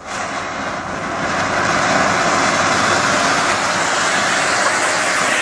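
A flower pot firework (a fountain-type firecracker) fixed to a small toy car, spraying sparks with a loud, steady rushing hiss as it drives the car forward. The hiss starts suddenly and grows a little louder over the first couple of seconds.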